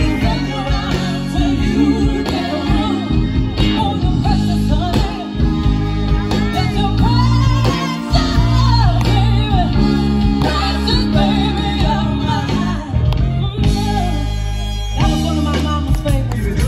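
A woman singing into a handheld microphone through PA speakers over live band backing music with a steady beat.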